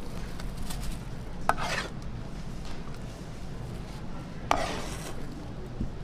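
Metal ladle knocking and scraping against a steel pan of tteokbokki as rice cakes in thick sauce are scooped out: two sharp clanks, about a second and a half in and again at about four and a half seconds, each followed by a short scrape, over a steady low background hum.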